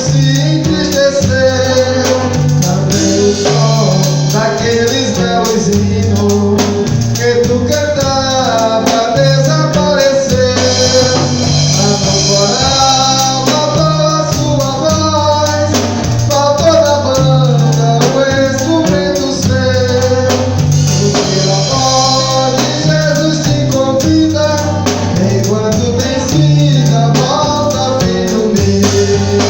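Live gospel praise music: a sung melody over a band with drum kit and a bass line stepping through chord changes, steady throughout.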